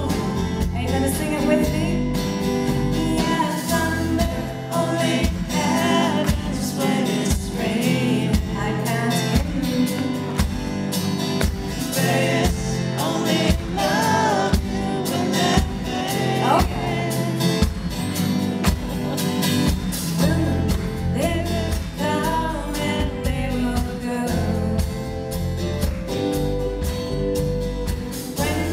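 A live band playing a song with a woman singing lead into a microphone, over a steady drum beat with bass and acoustic guitar.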